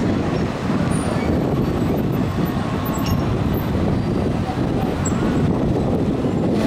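Hankai Tramway Mo 701-type tram rolling slowly into a street stop, its wheels running on the embedded rails, over a steady noise of city traffic.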